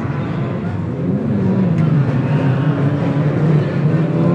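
Banger racing cars' engines running hard around the track, one engine's pitch rising then falling about a second in.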